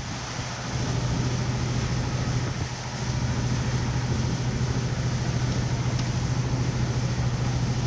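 An engine running steadily, a constant low hum over a steady hiss.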